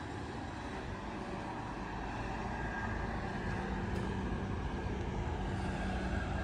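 Steady hum of distant road traffic, growing a little louder partway through.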